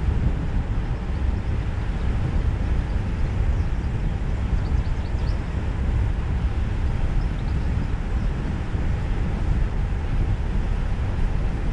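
A car driving along a country lane, heard from on board: a steady low rumble of road and engine noise.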